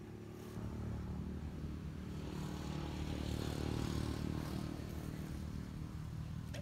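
A small engine passing by: its low hum swells from about half a second in, is loudest around the middle, and eases off toward the end.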